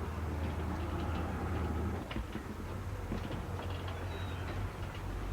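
Boat engine running steadily with a low hum, with scattered light clicks and a few brief high chirps over it.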